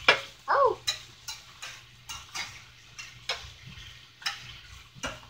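Spatula knocking and scraping against a cast-iron skillet as chunks of browning meat are stirred and turned, an uneven run of clicks a few times a second, the loudest just after the start.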